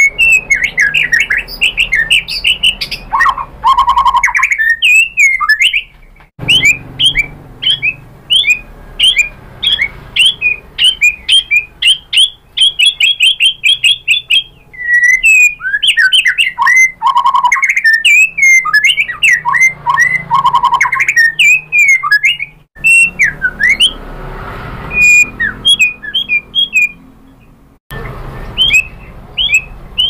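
Male white-rumped shama singing: a fast, varied run of sharp chirps, slurred whistles and trills, with a few lower, fuller whistled notes. The song breaks off briefly a few times.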